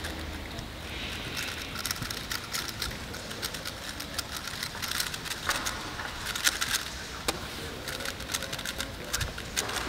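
A 3x3 Rubik's Cube being turned fast in a speedsolve: rapid, irregular plastic clicking, busiest in the second half.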